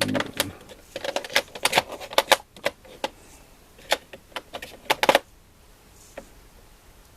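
Metal sockets and tools clicking against a plastic tool case as they are handled and pushed back into their slots: a quick, irregular run of sharp clicks that stops about five seconds in.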